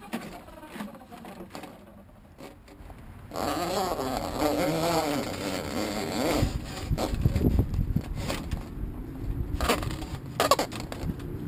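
Large drain cleaning machine starting up about three seconds in and running its cable down a root-clogged yard drain line, the motor's pitch wavering under load, with scraping and two sharp knocks near the end.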